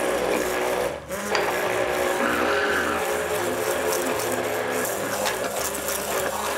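Hand-held immersion blender motor running steadily in a plastic jug, blending avocado mayonnaise as olive oil is worked in; the sound dips briefly about a second in, then carries on.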